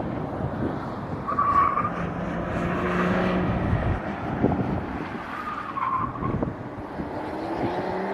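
A car being driven hard through the corners of a cone course, its tires squealing briefly twice over road and wind noise, with a tone rising in pitch near the end as it accelerates.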